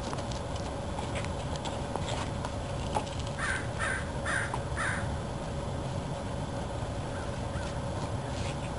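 A bird calls four times in quick succession, the calls spread over about a second and a half, above a steady low outdoor rumble. Faint scattered clicks come from hands working the vinyl.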